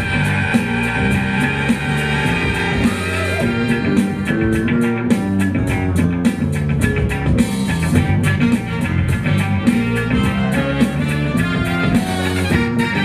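Rock music with guitar and drums, driven by a steady beat.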